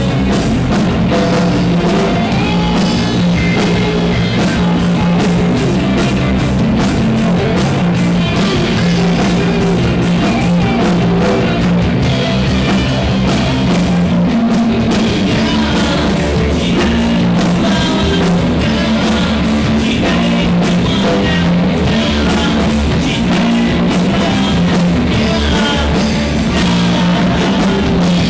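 Rock band playing live and loud: electric guitar, bass guitar and drum kit.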